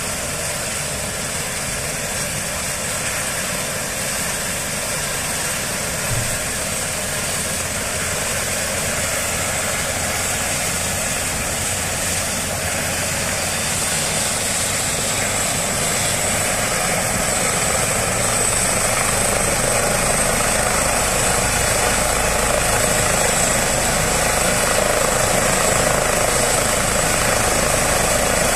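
Eurocopter EC135 helicopter running on the ground with its main rotor turning, spooling up for take-off: a steady high turbine whine over dense rotor and engine noise, growing gradually louder over the second half.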